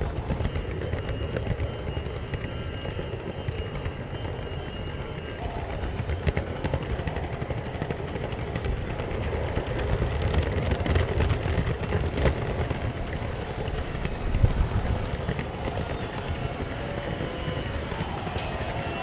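G scale toy train running on plastic track, heard from a camera riding on one of its tank cars: a steady rumble of wheels and drive with scattered clicks over the track.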